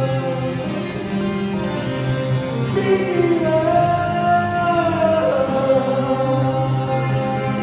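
A man singing live over his own strummed and picked acoustic guitar, with a long, wavering held note through the middle.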